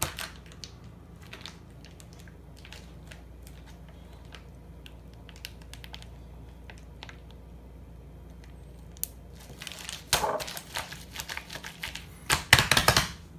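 Plastic zip-top bag of marinated chicken being squeezed, sealed and pressed, its plastic crinkling and rustling: scattered faint crinkles and clicks, then louder handling of the bag about ten seconds in and again near the end.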